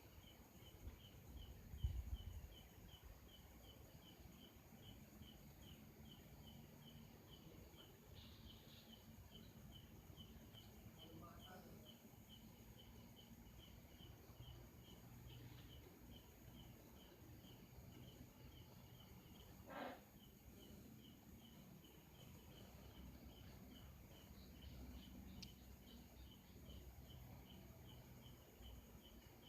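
Faint high chirp repeating evenly, a little under twice a second, from a small calling animal. A low thump about two seconds in and a sharp click near twenty seconds stand out above it.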